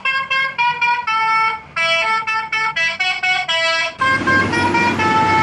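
Multi-tone "telolet" horn playing a quick tune of short notes stepping up and down in pitch. About four seconds in, traffic noise comes in under it as the horn keeps sounding.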